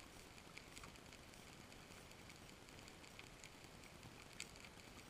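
Near silence: faint steady hiss from an underwater camera's recording, with a few faint sharp clicks, the loudest about four and a half seconds in.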